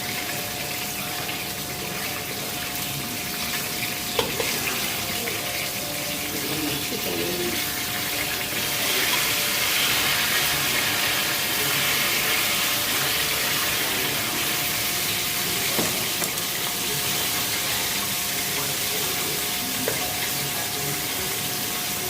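Garlic, ham and seasoning frying in oil in a pot: a steady sizzle that swells about nine seconds in, with a few light knocks and a faint steady hum underneath.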